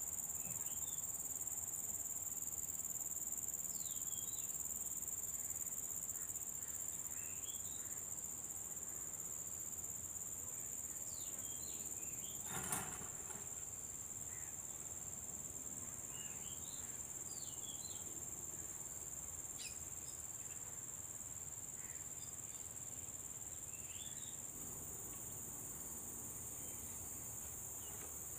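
Steady high-pitched chorus of insects such as crickets or cicadas, with scattered short faint chirps over it. One sharp knock sounds about halfway through.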